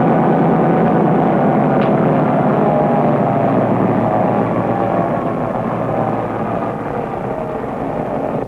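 Diesel switcher locomotive running steadily as it moves cars through the yard, easing off slightly toward the end.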